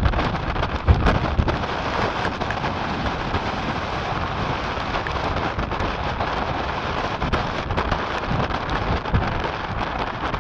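Typhoon storm noise: a steady rush of wind, rain and waves, with gusts buffeting the microphone in low thumps, the strongest about a second in.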